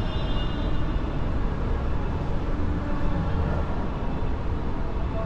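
Steady low rumble of outdoor city ambience, like distant traffic, with no distinct events.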